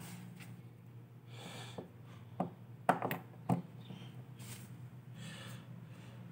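Power cord plug clicking and knocking as it is pushed into the IEC mains socket on a subwoofer's plate amplifier: a few sharp clicks from about two and a half to three and a half seconds in, the loudest near three seconds. Soft rushing noises come and go around them over a faint low hum.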